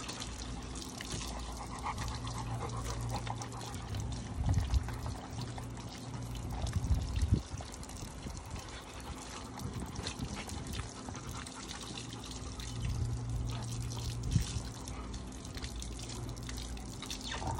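Water from a garden hose trickling and splashing onto concrete, with a few short knocks of dogs eating dry kibble from a plastic pan.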